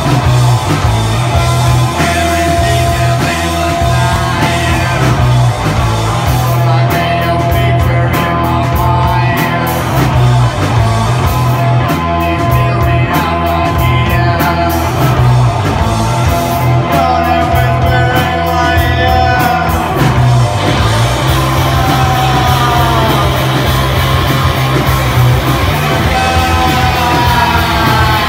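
Psychedelic garage rock band playing live and loud: drum kit and electric guitars, with a singing voice over them at times.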